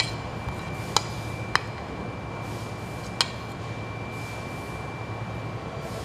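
Steady factory machinery hum with a thin high whine over it. A few sharp clicks fall in the first half, four in all.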